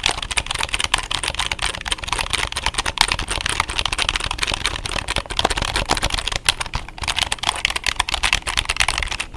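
Fast, continuous typing on a wired computer keyboard: a dense clatter of key presses.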